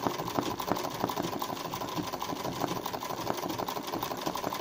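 Domestic sewing machine running steadily at speed, its needle stitching rapidly in a fast, even clatter: freehand kara makine embroidery.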